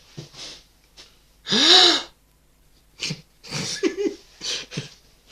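A person imitating a gasp: one loud, sharp, breathy intake with a voice that rises and falls in pitch, about a second and a half in, followed by a few shorter, softer vocal noises.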